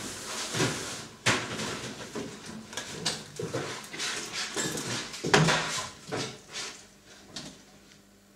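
Clattering metal knocks and rattles from a confectionery guitar cutter being worked through a slab of jelly and ganache, with a few loud knocks in the middle, tailing off near the end.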